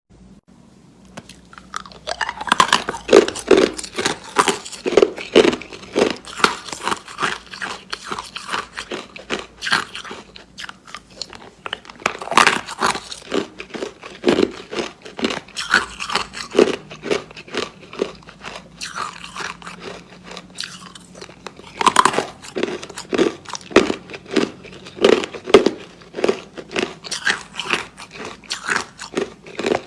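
Ice being bitten and chewed: a steady run of crisp crunches that starts about two seconds in, with louder bursts where fresh pieces are bitten, three times.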